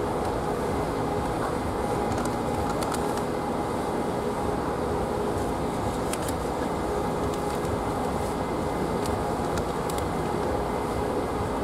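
A steady mechanical rumble with a constant hum and a few faint clicks.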